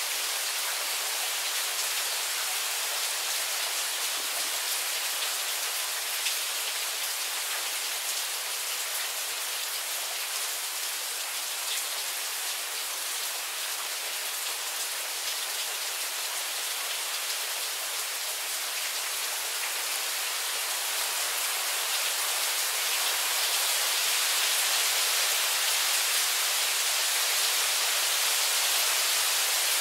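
Steady rain shower falling, a dense even hiss with many separate drop hits, getting somewhat louder about two-thirds of the way through.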